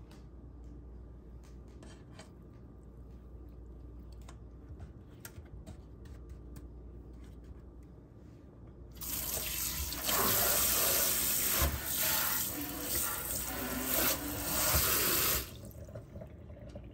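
Kitchen tap running into a stainless steel sink for about six seconds, splashing onto a wet paper towel spread over the drain; it starts a little past halfway and shuts off abruptly near the end. Before it, only faint light clicks of handling.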